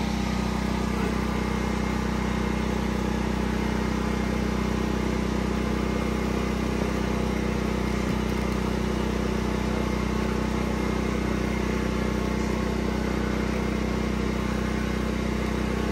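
An engine running steadily at idle: an even, unchanging hum that holds the same speed throughout.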